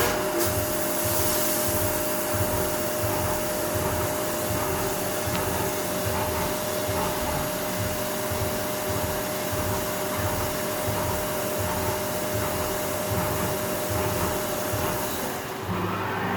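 Haas five-axis CNC mill running: a steady hiss with a steady whine that stops near the end.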